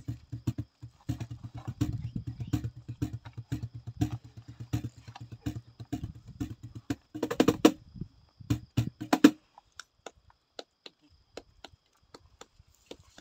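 Cajón played by hand in a driving flamenco bulería rhythm, deep bass strokes mixed with sharp slaps, stopping about nine seconds in. A few scattered hand claps follow.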